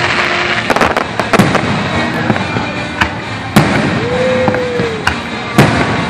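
Aerial firework shells bursting: repeated sharp bangs, the loudest about three and a half and five and a half seconds in, over a steady wash of crackle and rumble from the display.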